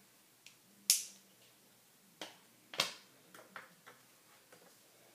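Sharp plastic clicks and taps from a concealer container being handled, with the loudest about a second in and just before three seconds, and a few lighter ticks after.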